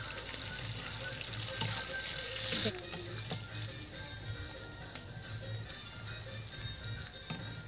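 Sliced onions and green chillies sizzling in hot oil in a kadai, just after the onions go in. The sizzle drops sharply about three seconds in and carries on more quietly while a metal spatula stirs the pan.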